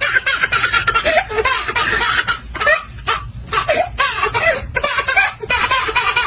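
Laughter: a long run of short, bright laughing bursts, broken by brief pauses.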